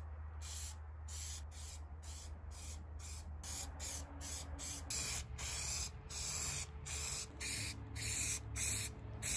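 Aerosol can of spray putty hissing in short repeated bursts, about two a second, the later passes a little longer, as coats are sprayed onto 3D-printed plastic vents.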